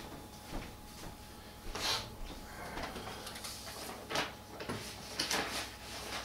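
A few brief scrapes and rustles of things being handled in a room, four or so short sounds over several seconds, over a low steady hum.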